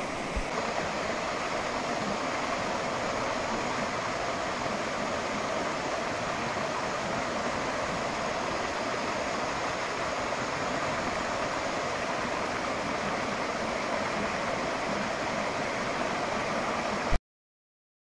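Shallow waterfall water rushing over rock and around bare feet: a steady rush of falling water that cuts off suddenly near the end.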